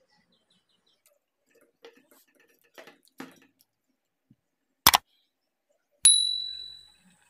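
Subscribe-button sound effects: a sharp mouse click about five seconds in, then a second click about a second later with a bright notification-bell ding that rings out and fades over about a second. A few faint clinks come before them.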